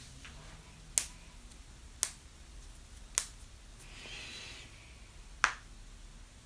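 A person hiccupping: four loud, sharp hiccups, the first three about a second apart and a longer pause before the fourth.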